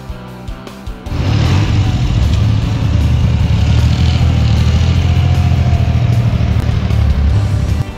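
Background music for about a second, then a classic motorcycle's engine running loudly and steadily as the bike rides off slowly. The engine sound cuts off suddenly just before the end, back to the music.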